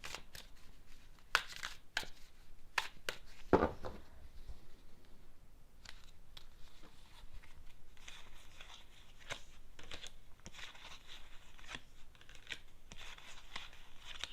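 A deck of tarot cards being shuffled by hand: scattered sharp card snaps in the first few seconds, then steadier papery rustling with quick light ticks from about eight seconds in.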